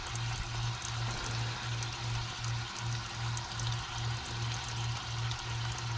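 Transmission cooler line flush cleaner fizzing and hissing as it foams out of the cooler lines, a steady sizzle. Under it a low hum pulses evenly, about three times a second.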